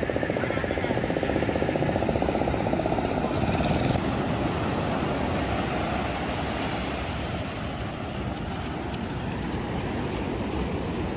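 A fishing boat's outboard motor running as the boat comes in through the surf, a fast even pulsing. About four seconds in it gives way to the steady wash of surf on the beach.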